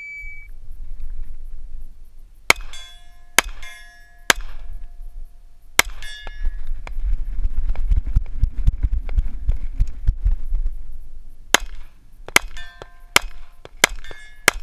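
Shot-timer beep, then pistol shots at steel gongs, each hit leaving the steel ringing. Four shots about a second apart come early, then a stretch of low rumbling movement noise, then five quicker shots near the end.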